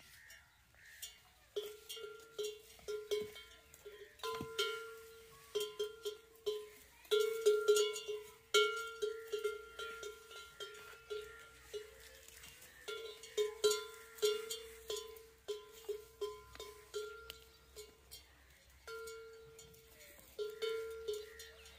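A metal bell hung from a camel's neck clanks irregularly, sometimes several strikes a second, as the camel tugs at the tree foliage it is browsing. The clanking starts about a second and a half in and pauses briefly near the end.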